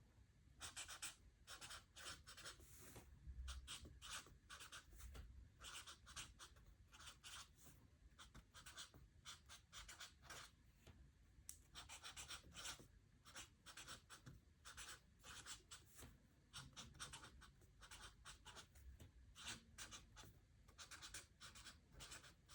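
Handwriting on paper: faint scratchy pen strokes in quick runs, broken by short pauses between words.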